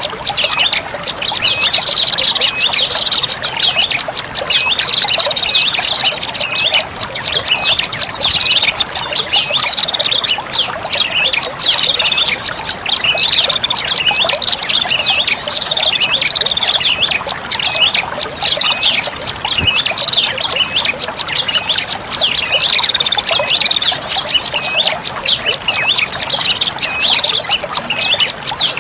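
Prenjak lumut song used as a bird-lure call: a dense, unbroken run of rapid high chirps and quick ticking trills.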